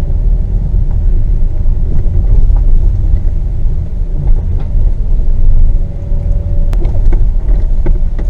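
Car driving slowly over a rough dirt trail, heard from inside the cabin: a steady low rumble from engine and tyres on the uneven ground. A few sharp knocks come near the end.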